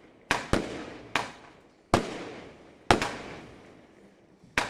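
Klasek Brocade War firework cake firing its salute shells: six sharp, loud bangs at uneven intervals, each trailing off before the next.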